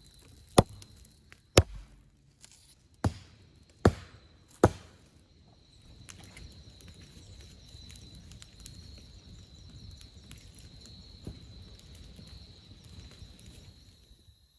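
Five sharp cracks of dry firewood being chopped, coming in the first five seconds about a second apart. After them comes a softer low crackle with faint scattered clicks from the burning campfire, over a steady high-pitched tone.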